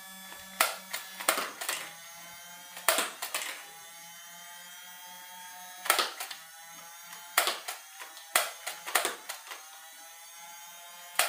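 Nerf Alpha Strike Flyte CS-10 motorised flywheel blaster whirring steadily while it fires foam darts, with about a dozen sharp clacks in small clusters of one to three as darts are shot and knock into plastic cones.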